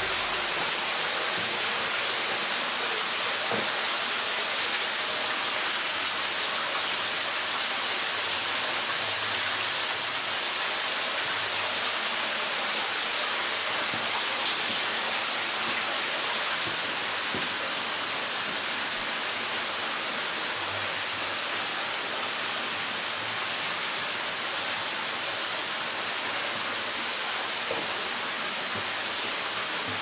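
Steady rush of falling water from an underground waterfall inside a limestone cave, easing slightly about halfway through.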